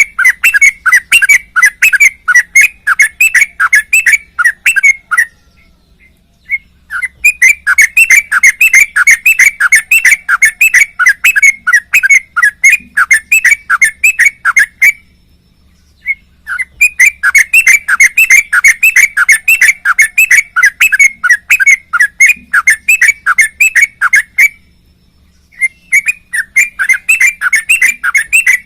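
Caged yellow-vented bulbul (trucukan) singing the fast, rolling song that keepers call ngropel: long runs of rapid, repeated whistled notes, each run several seconds long, broken by pauses of a second or two.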